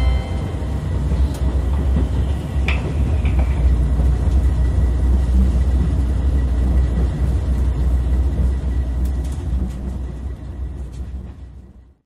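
Cabin noise inside a JR Shikoku 2000 series diesel tilting express on the move: the steady low rumble of the train running, with a light click about three seconds in, fading away over the last few seconds.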